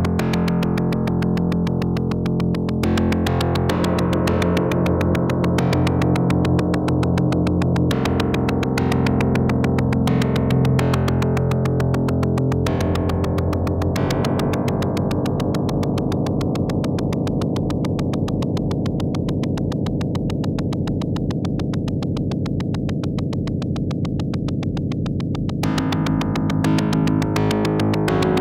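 2hp Pluck physical-modelling voice in a Eurorack modular, retriggered by random voltages from a 2hp Rnd module: a fast stream of plucked synth notes over a held tone, with random overtones that flare bright and die away every few seconds. The sound shifts about halfway through, when the patch cable at the Pluck's pitch input is handled.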